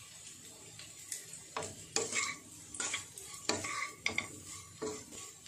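A wooden spatula stirs and scrapes boiled baby potatoes around a nonstick kadai. The strokes start about a second and a half in and come every half second to a second, over a faint sizzle from the pan.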